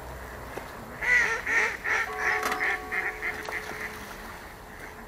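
A duck quacking: a run of about ten quacks that come faster and grow quieter.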